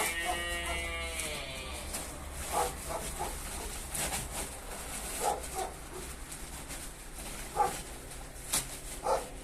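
Farm livestock calling: one long, slightly falling call over the first second and a half, then several short calls scattered through the rest.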